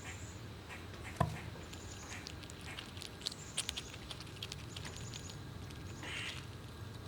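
Squirrels cracking and chewing nuts: quick crisp crunches and clicks, with one sharp knock about a second in.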